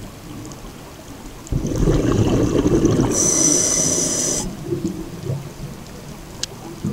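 Scuba diver's regulator breathing heard underwater: a sudden loud rumble of exhaled bubbles starting about a second and a half in and lasting about three seconds, with a hiss over it near the middle.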